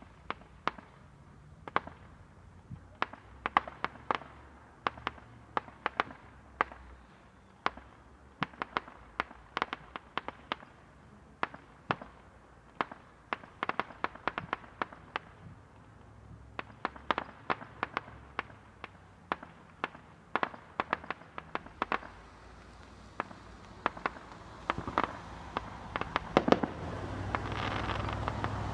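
Firecrackers going off as a long run of sharp, irregular bangs, often several in quick succession. A steady low rumble builds underneath near the end.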